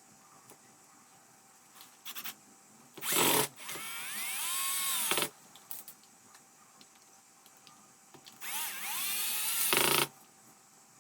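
Small electric power-tool motor run in two bursts of about two seconds each, its whine rising in pitch as it speeds up, with a few light clicks before the first.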